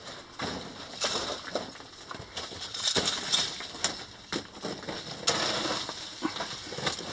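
Footsteps crunching and scraping over loose rock and gravel, with irregular clicks and knocks of stones shifting underfoot.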